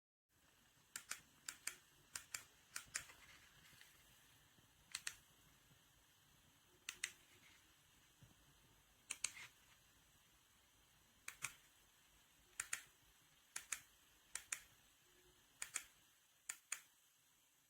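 A series of sharp, short clicks at irregular intervals, many in quick pairs like a button or switch being pressed and released.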